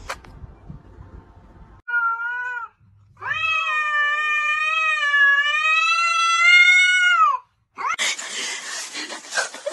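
A cat yowling in a face-off with another cat: a short call about two seconds in, then one long wavering yowl of about four seconds. Near the end a rough, noisy rasping sound takes over.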